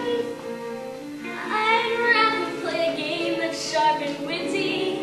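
Children singing a stage-musical number over musical accompaniment, the singing growing louder about a second and a half in.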